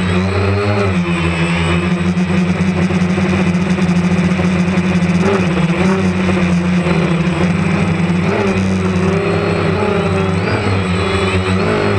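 DJI Phantom 2 Vision+ quadcopter's motors and propellers buzzing steadily, the pitch sweeping up and down briefly about half a second in and again near the end as the motors change speed.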